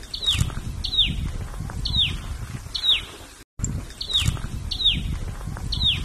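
A small songbird singing a series of short, sharp, down-slurred whistled notes, about one a second, over a low rumble. The sound cuts out briefly about halfway through, then the same phrase repeats.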